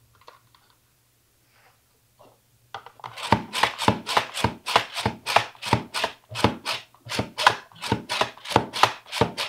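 Fresh mushrooms being cut in a hand-worked vertical slicer: a quick, even run of slicing strokes, about three a second, starting about three seconds in.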